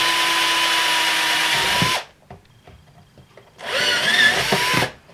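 Electric drill with a 6 mm bit boring through the plastic body shell of a model locomotive: a steady whine that stops about two seconds in, then after a short pause a second, shorter run of about a second that rises in pitch as the motor spins up.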